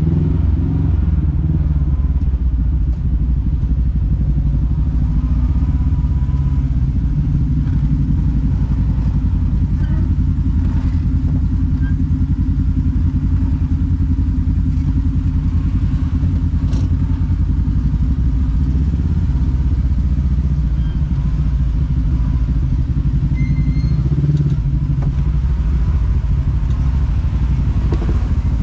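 Side-by-side UTV engine running steadily at low speed, heard from inside the cab, with a few light knocks as it crawls over rough ground.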